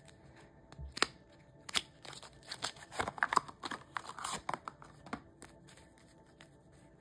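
Tarot cards being shuffled and handled by hand: a run of sharp card slaps and rustling from about a second in, dying away after about five seconds.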